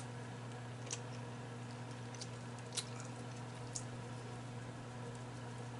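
Fingers and nails picking apart a boiled shellfish shell: about four small sharp clicks and cracks, spread a second or so apart, over a steady low hum.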